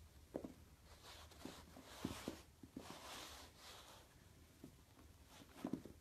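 Faint soft taps with two brief scratchy rustles, the first about a second in and the second about three seconds in.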